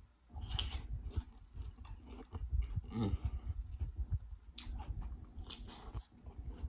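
A close-miked bite into a fresh cucumber slice about half a second in, then crunchy, wet chewing of it.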